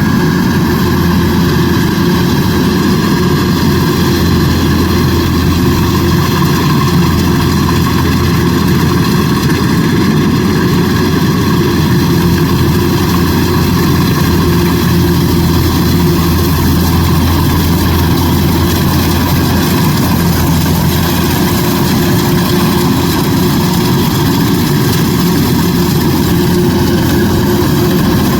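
Kubota DC105X combine harvester running steadily at an even, loud level, its engine hum heavy in the low end.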